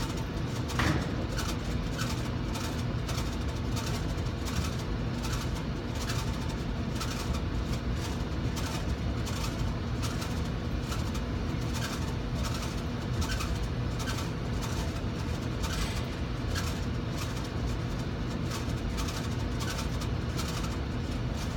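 Rheem air-conditioner blower unit running: a steady machine hum with a faint tone through it, and a light tick repeating about every half second.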